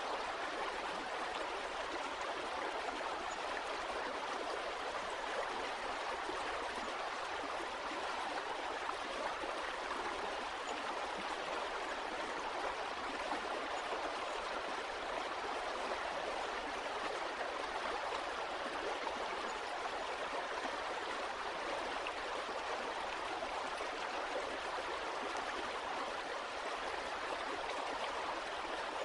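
Flowing water of a stream, a steady, even rushing and babbling.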